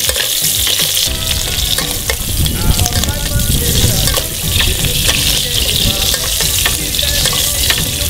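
Blackened snapper fillet frying in hot olive oil in a pan, a steady sizzle with many small crackles as the oil is spooned over it. A low rumble runs underneath from about a second in.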